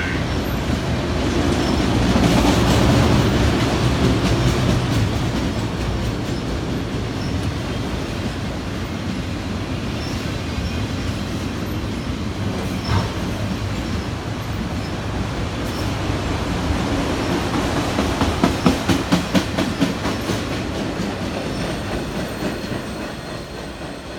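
Cars of a long CN freight train rolling past, with the steady rumble of steel wheels on rail. About 18 seconds in comes a quick run of rhythmic clacks as wheels cross a rail joint, and the sound fades near the end as the train moves away.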